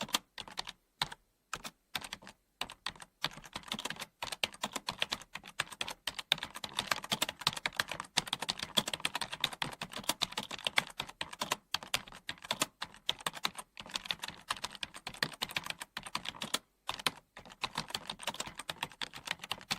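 Computer keyboard being typed on: fast, uneven runs of key clicks with brief pauses between bursts.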